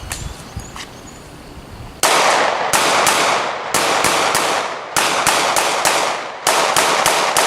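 Pistol fired in the Haley 1-5 drill: a single shot about two seconds in, then strings of two, three, four and five shots with short pauses between the strings. Within each string the shots come about three a second, each with a brief echo.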